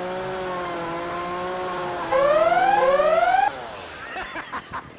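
Chainsaw running at a steady pitch. About two seconds in it revs twice, louder, each rev rising in pitch, and it drops off about three and a half seconds in.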